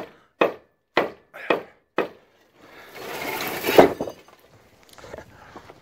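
Five heavy hammer blows on a precast concrete garage post, about two a second, then a longer crashing rumble as the post breaks free and falls to the ground, loudest just before four seconds in.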